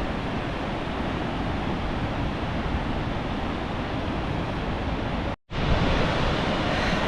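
Steady rushing of Tvindefossen waterfall, with a brief drop to silence about five seconds in, after which it comes back slightly louder.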